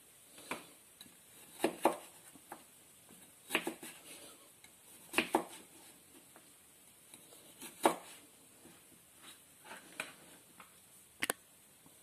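Steel chef's knife slicing a cucumber on a plastic cutting board: the blade knocks sharply on the board at irregular intervals, sometimes two strokes close together, with quieter handling of the cucumber between.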